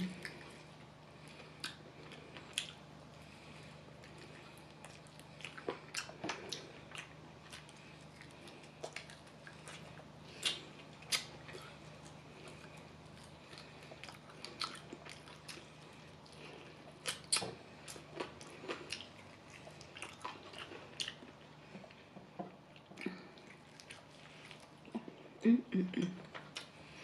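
Eating sounds from cold, soft-skinned fried chicken eaten by hand: faint chewing, wet mouth smacks and clicks, and meat being pulled from the bone, scattered irregularly over a steady low hum. A cluster of louder smacks comes near the end.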